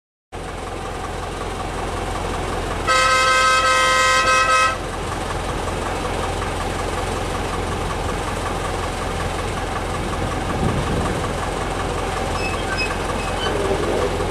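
A narrow-gauge steam locomotive's whistle sounds one loud, steady blast of about two seconds, a few seconds in, over a steady low rumble.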